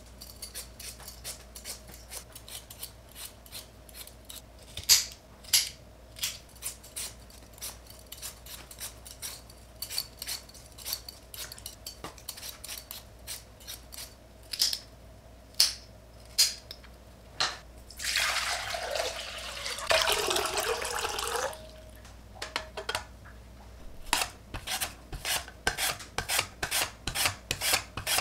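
Metal Y-peeler scraping the skin off a raw potato in short, uneven strokes. About 18 seconds in comes a few seconds of running water, and near the end a potato slid back and forth over a mandoline slicer, rasping in quick even strokes.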